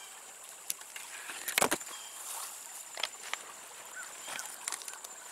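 Hand picking spicebush berries: leaves and twigs rustling and snapping in small clicks, with one sharper knock about one and a half seconds in.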